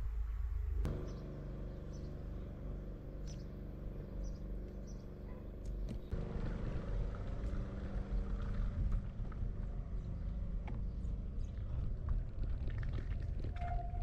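Motor vehicle engine running steadily over a low rumble; from about six seconds in the rumble turns rougher, with scattered clicks, as tyres roll over a paving-stone road.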